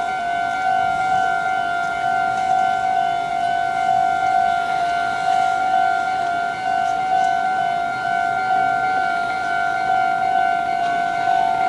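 Japanese railway level-crossing warning alarm ringing, an electronic bell repeating one high tone over and over: the signal that a train is approaching and the barriers are down.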